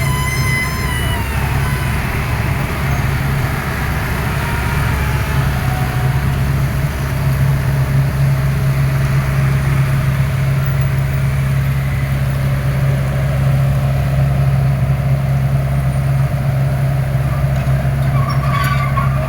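Excavator's diesel engine running steadily under load, a constant low drone that grows a little louder after about seven seconds. A short high-pitched tone sounds at the very start.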